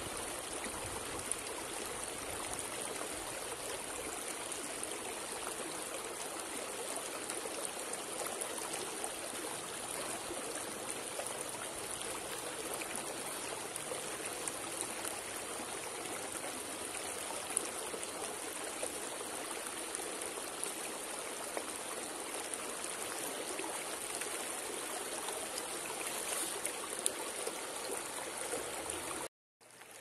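River water flowing, a steady rushing with no change in level. It cuts out for a moment near the end.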